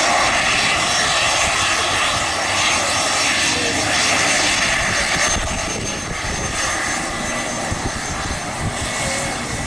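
Twin rear-mounted turbofan engines of a Bombardier Challenger business jet running at taxi power, a steady jet whine and hiss. It eases slightly about halfway through as the jet turns away onto the runway.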